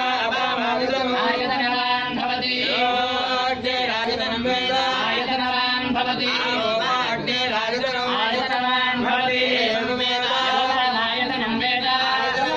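Devotional chanting, a voice singing a mantra to a melody over a steady held drone.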